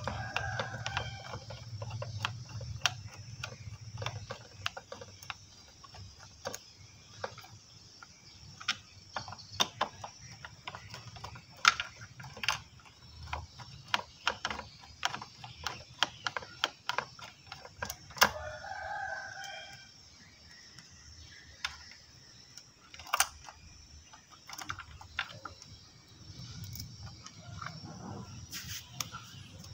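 Wire connectors being pulled off an electric bicycle's controller: a run of sharp plastic clicks and small rattles of wires. A rooster crows in the background, once near the start and again a little past halfway.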